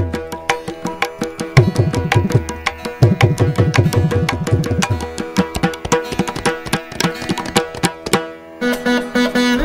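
Carnatic percussion passage: rapid drum strokes from the accompanying tabla, mridangam and ghatam, with deep strokes that bend in pitch, over steady held tones. Near the end the drumming breaks off and a veena comes back in with sustained plucked notes.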